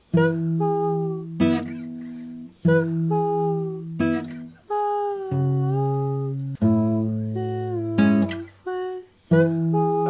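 Background music: a strummed acoustic guitar playing chords, with a voice singing the melody over it.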